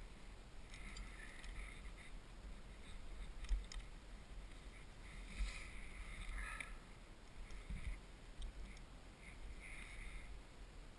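Wind rumbling on a helmet-mounted camera, with faint rustles and a few sharp clicks as paraglider harness, risers and lines are handled.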